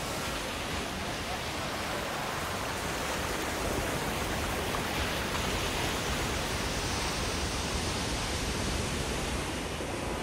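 Heavy surf breaking and washing over shoreline rocks: a steady rush of churning white water.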